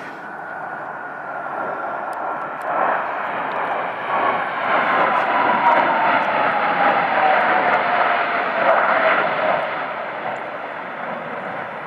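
Blue Angels F/A-18 Hornet jets flying past in formation: a loud jet-engine rumble with a whine that falls steadily in pitch as they go by, loudest in the middle.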